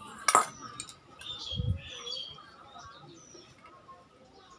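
A single sharp knock near the start, then small birds chirping in short falling notes, with a dull low thud about a second and a half in.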